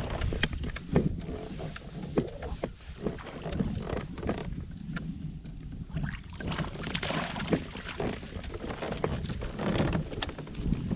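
Wind rumbling on the microphone aboard a kayak, with scattered small knocks and clicks from handling on the boat.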